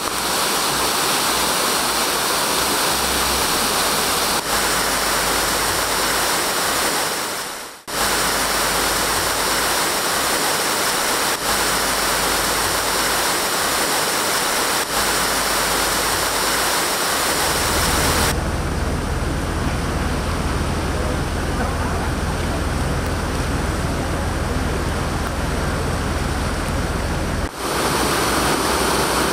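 Water pouring through the sluices of a canal lock gate as the lock chamber fills, a loud steady rush. It cuts briefly about eight seconds in, and from past the middle until near the end it turns deeper, with a low rumble under the rush.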